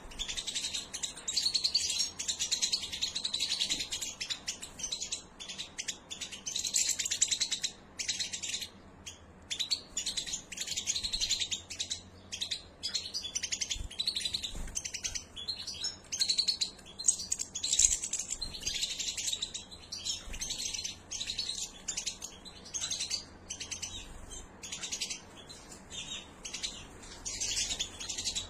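A group of European goldfinches, adults and young, twittering with rapid high chirps almost without pause, broken by short gaps.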